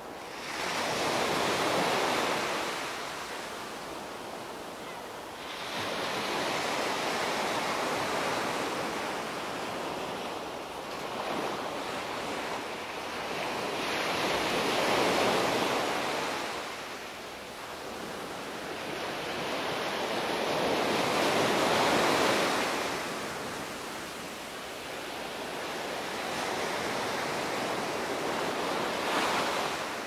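Small sea waves breaking and washing up a sandy beach, the hiss of surf swelling and fading about every six to seven seconds.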